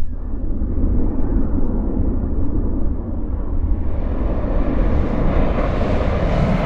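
Steady low rumble of air rushing over a descending rocket payload's camera, growing louder and hissier from about four seconds in.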